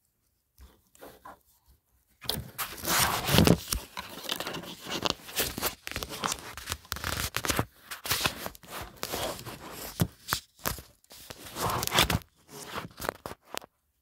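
Close rustling and scraping with many small clicks, starting about two seconds in and stopping shortly before the end: the sound of something being handled right against the phone's microphone.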